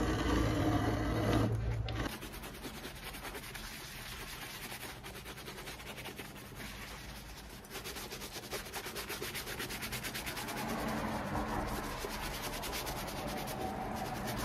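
A shoe-repair machine's motor hums for about the first two seconds, then cuts off. Then a brush rubs back and forth over the bottom of a leather boot in quick, even strokes.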